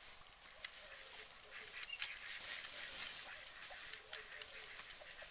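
White domestic ducks giving soft, short calls, over a steady hiss that swells in the middle.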